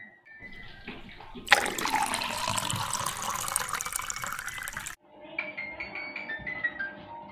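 Kitchen tap running hard into a steel sink for about three seconds, then cut off abruptly. Light background music with a plinking melody plays before and after it.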